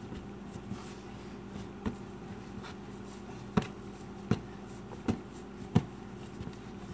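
Hands rolling and pressing a log of sugar-cookie dough on a countertop: about six dull knocks at uneven intervals, the loudest past the middle, over a steady low hum.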